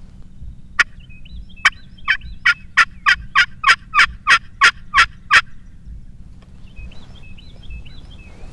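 Handheld turkey call worked in a series of about a dozen sharp hen yelps. The yelps speed up and get louder, then stop about five and a half seconds in. It imitates a hen turkey to draw a gobbler in.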